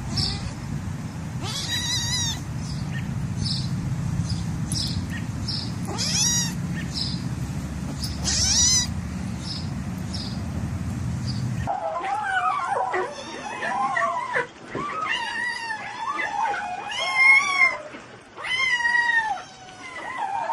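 A cat yowling in a string of long, wavering meows through the second half. Before that, under a steady low rumble, short high chirps repeat about twice a second with a few louder calls.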